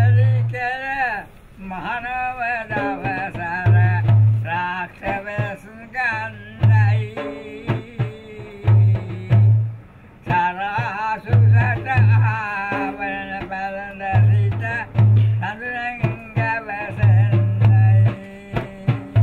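An old man's voice chanting a Sinhala ritual verse in a long, wavering melody, over a low drum beat that falls roughly every two and a half seconds.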